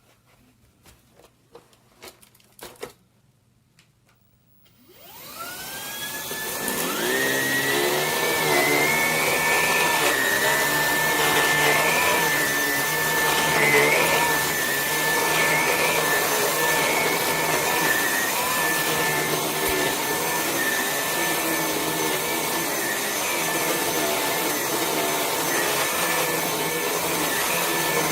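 A few clicks of handling, then a Vax HomePro Plus cordless stick vacuum switches on about five seconds in, its motor spinning up with a rising whine and settling to a steady run with a constant high tone. The vacuum is cleaning spilt flour from a rug.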